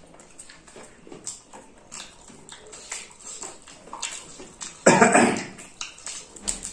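Eating sounds of people eating rice and chicken with their hands: wet chewing, lip smacks and fingers squishing rice, heard as many small clicks. About five seconds in there is a short, loud, breathy burst from one of the eaters.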